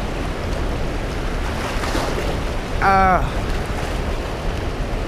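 Rushing, flooded river water running over rocks, a steady noise with wind buffeting the microphone. About three seconds in, a short pitched voice-like call sounds briefly over it.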